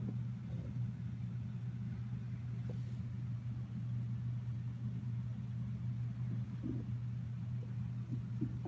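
A steady low hum with a few faint soft knocks and rustles near the end.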